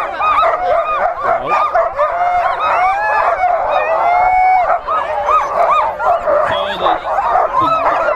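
Many sled dogs barking and yipping over one another in a continuous, overlapping chorus.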